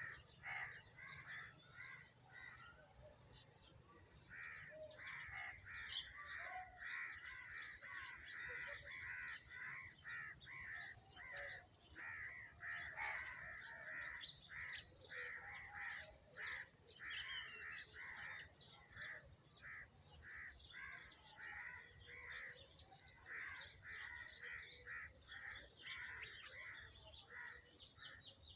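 A flock of sparrows chirping and chattering, many short harsh calls overlapping in a dense, continuous chorus, with one sharper, louder chirp about two-thirds of the way through.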